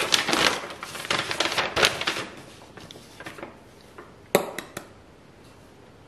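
Paper receipt rustling and crinkling as it is unfolded and handled, busiest in the first two seconds, then a sharp click and a couple of light ticks a little past four seconds in.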